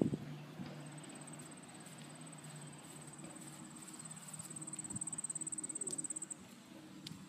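An insect trilling: a high, fast, even pulsing that grows louder and stops suddenly about six seconds in. A short knock right at the start, with a faint low hum underneath.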